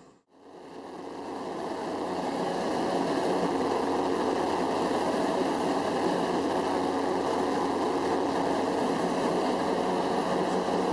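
Light single-engine propeller aircraft in flight, heard from inside the cabin: a steady engine and airflow drone. It fades in after a brief dropout just after the start and is steady from about three seconds in.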